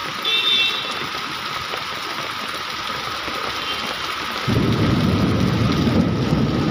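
Heavy rain falling steadily with a brief high beep about half a second in. About four and a half seconds in, a louder, deeper noise sets in and keeps going.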